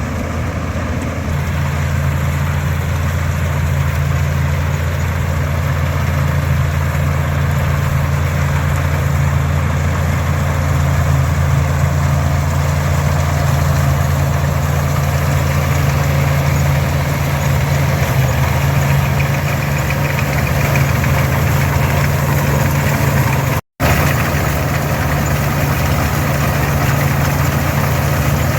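International 460 diesel tractor running steadily under load, driving an International 82 pull-type combine that is harvesting oats. The engine hum and the combine's threshing and rattle blend into one steady, loud drone. The sound drops out to silence for a moment about twenty-four seconds in.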